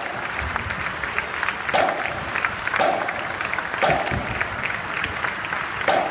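A crowd applauding and cheering, with a louder beat coming through about once a second.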